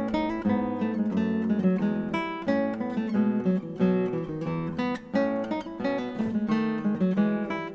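Background music: a solo guitar playing a plucked early-music piece, with several melodic lines sounding at once.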